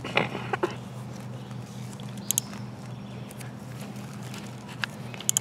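Gorilla tape being pulled off the roll and wrapped around a spincast reel's foot on a cane pole: a short crackling rip at the start, then scattered small clicks and crinkles of the tape and reel, over a steady low hum.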